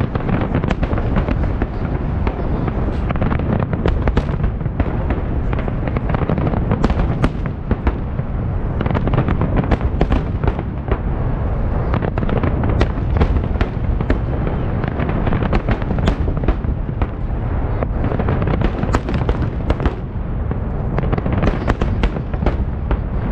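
Festive fireworks salute: many shells bursting in quick succession, a dense crackle of sharp bangs over continuous deep booming.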